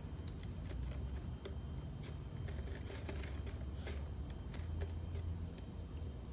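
Scattered small clicks and rustles of chunky potting mix and a pot being handled during repotting, over a steady background of insects chirring and a low rumble.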